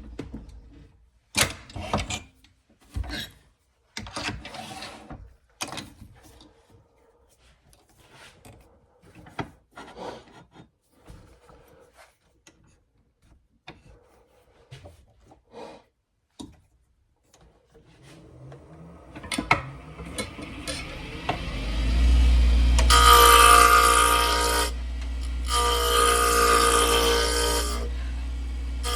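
Scattered knocks and clicks of handling for the first eighteen seconds or so. Then a wood lathe starts with a steady low hum, and a turning tool cuts the spinning curly cherry blank in passes a few seconds long, each a loud scraping with a ringing pitch to it.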